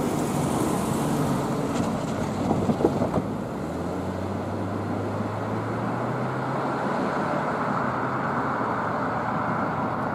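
Double-stack intermodal freight cars rolling past and moving away, a steady rumble of wheels on rail with a few clicks about two to three seconds in. A steady low hum comes in about four seconds in.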